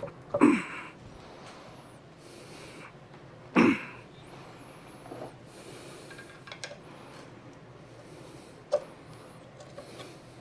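Two short grunts or forced breaths from a man, about three seconds apart, with a few faint clicks later on.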